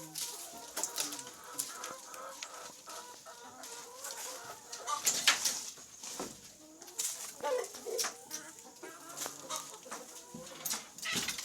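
Chickens clucking in a poultry house, with scattered sharp clicks and knocks throughout.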